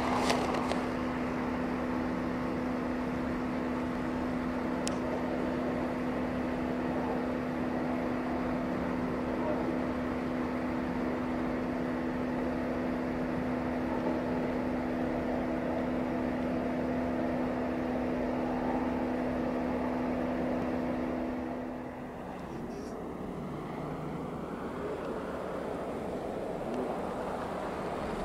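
An engine running at a steady speed, a constant hum over a rushing hiss; the hum stops abruptly about 22 seconds in, leaving a fainter rushing noise.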